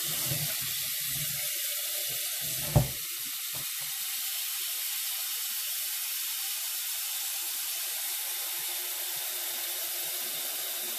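Cold tap water running steadily into a stainless steel pot of blanched broccoli and cauliflower in a stainless steel sink, to stop the vegetables cooking. A few bumps come as the pot is handled in the first second, and one sharp knock about three seconds in.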